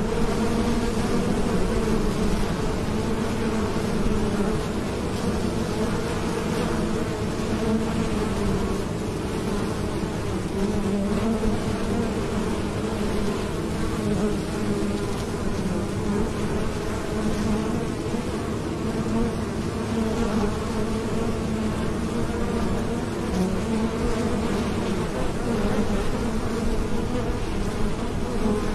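Many honeybees buzzing steadily at a hive entrance as they fly in and out, a continuous, even hum.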